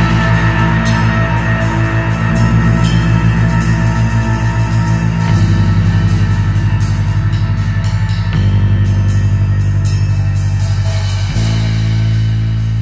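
Progressive rock band playing: a drum kit with cymbals over held low guitar and bass chords that pulse rapidly and change about every three seconds.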